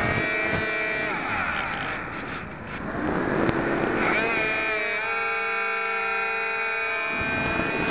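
Electric motor and propeller of a Firebird Delta Ray RC plane whining in flight, heard through the camera mounted on the plane. The whine drops in pitch and fades about two seconds in as the throttle comes back, then rises and settles into a steady high whine again about four seconds in.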